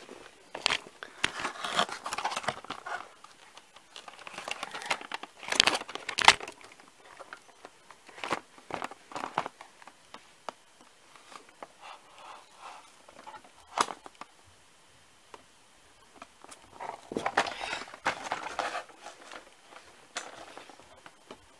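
A cardboard toy box being wrestled open by hand: irregular rustling, scraping and crinkling of card and packaging, with sharp clicks and a few louder bursts of tearing.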